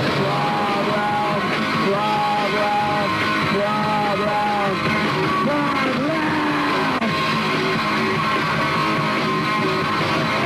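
Rock music with sung, shouted lead vocals over guitar and a steady band backing.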